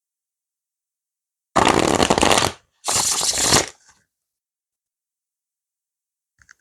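Tarot deck being shuffled in two quick bursts, the first about a second long and the second slightly shorter, with a short pause between.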